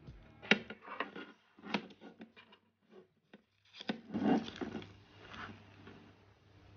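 Cardboard and paper of a new iPhone box being handled on a table: a string of light taps and knocks, then a louder papery rub about four seconds in as the paper screen cover is lifted off the phone.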